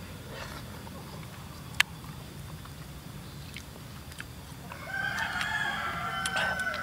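A rooster crowing: one long crow lasting about two seconds, starting a little before the end. A single sharp click is heard about two seconds in.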